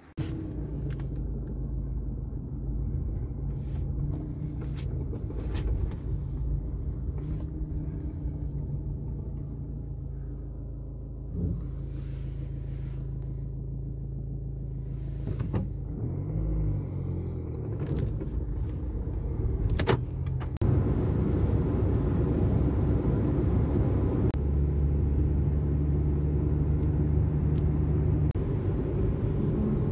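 A car's engine and road noise heard from inside the cabin while driving: a steady low drone that shifts in pitch around the middle and gets louder about two-thirds of the way in, with a few short clicks and knocks.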